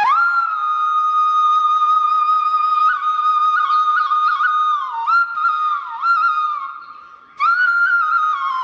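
Background music: a solo flute melody. It slides up into a long held note, adds quick trills and dips, fades away about seven seconds in, then starts a new phrase.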